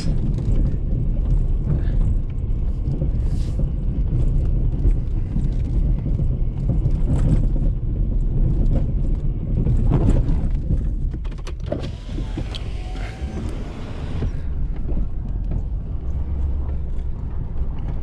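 Ford F-350's 6.7-litre Power Stroke V8 turbo-diesel running under load while pushing a snowplow along a rutted, snow-covered road, with a few knocks from the ruts. Partway through, a steady hiss runs for about two seconds.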